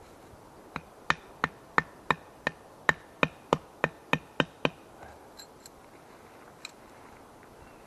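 Hammering: about a dozen sharp, evenly spaced knocks at roughly three a second for some four seconds, then two fainter taps.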